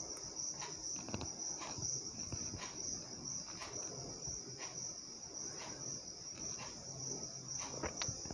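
Metal spatula scraping and knocking against an aluminium pressure cooker as mutton pieces are stirred, in scattered short clicks, the loudest near the end. Under it runs a steady, high, faintly pulsing hiss.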